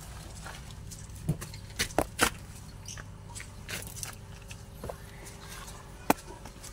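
Scattered short clicks and knocks of hand tools being handled while working under a car, the loudest a close pair about two seconds in and a single sharp one near the end, over a low steady background hum.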